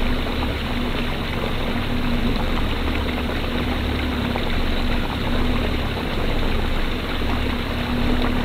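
Boat motor running steadily: a low drone with a wavering hum, over the rush of water.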